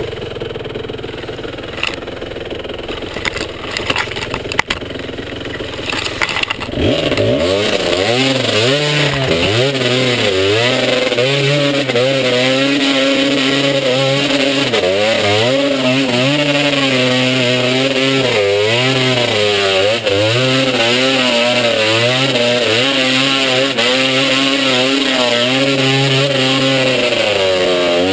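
Dirt bike engine running at low revs with some clatter for the first six seconds or so, then loud under throttle, its pitch rising and falling as the rider opens and closes the throttle.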